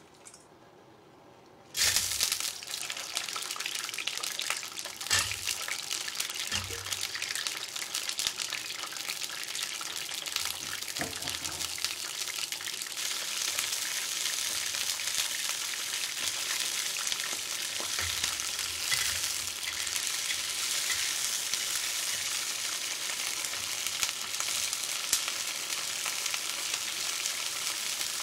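Fresh crawfish going into hot oil in a black iron wok: a sudden loud sizzle about two seconds in, then steady frying sizzle, with a few low thumps.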